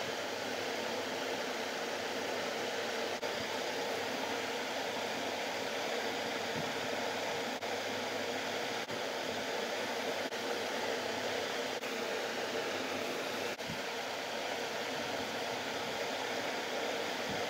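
Steady, even background noise like a running fan, with no speech and no distinct knocks or strokes.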